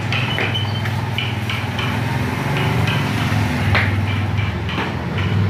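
Workshop noise: a steady low machine-like hum with irregular sharp taps and knocks over it, two of them stronger near the end.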